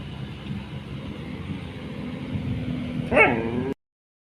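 A street dog gives one short whine that rises and falls, about three seconds in, over a steady low rumble. The sound cuts off suddenly just after.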